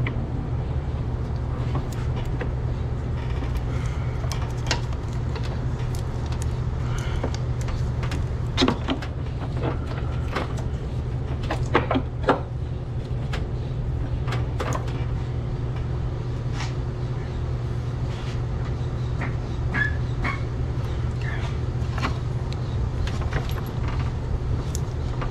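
Scattered light metal clicks and knocks as an engine mount bracket and its bolt are handled and worked into line by hand, over a steady low hum.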